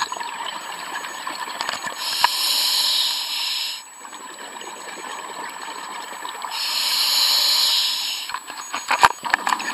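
Fireworks hissing in two bursts of under two seconds each, with quieter hissing between, then a quick run of sharp cracks and crackles near the end.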